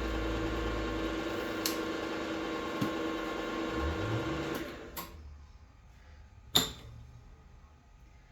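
An electric motor on a workshop machine runs with a steady hum and is switched off about four and a half seconds in. A click and then a single sharp knock follow.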